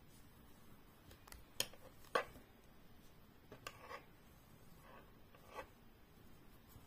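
Faint handling sounds of crochet work: a few short clicks and rubs from the crochet hook and cotton yarn as stitches are worked. The two loudest come about one and a half and two seconds in, with softer ones later.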